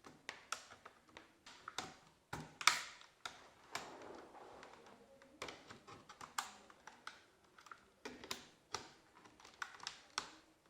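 HP Pavilion G6 laptop keyboard being pried up out of its frame: irregular sharp plastic clicks and knocks, the loudest a little under three seconds in.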